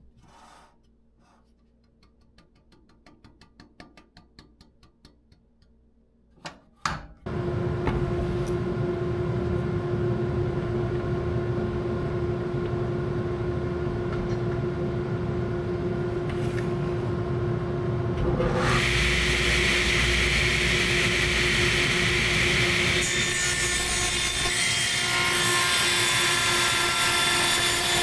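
Electric saw ripping the worst edge off a 2x6 board. After a few quiet seconds with light clicks, the saw motor starts about seven seconds in and runs freely with a steady hum. About eleven seconds later the blade bites into the wood and a louder, harsher cutting noise continues to the end.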